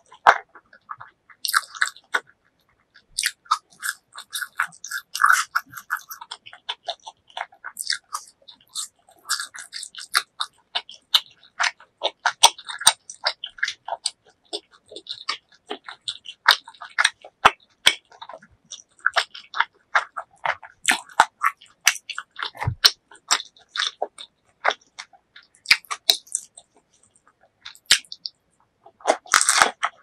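Close-miked chewing: a person eating with the mouth closed, heard as an uneven run of short clicks and smacks. Near the end there is a louder, longer bite into a Vietnamese rice paper spring roll.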